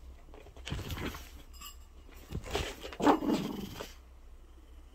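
Two small dogs play-fighting, making dog noises in several short bursts, the loudest about three seconds in.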